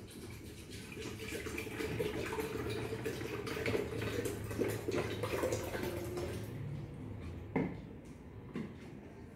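Water poured from a plastic bottle into a stainless-steel electric kettle, gurgling and splashing, stopping about six and a half seconds in. Then two knocks as the bottle is set down on the table, the first the louder.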